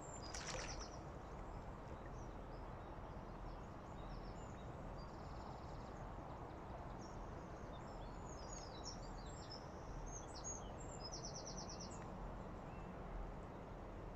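Small birds chirping and trilling over a steady outdoor background hiss, with a sharp trill about half a second in and others later on.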